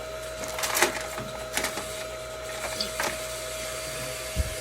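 PVC pipe and fittings being handled: a few light plastic clicks and knocks, then a duller thump near the end, over a steady hum with a faint high tone.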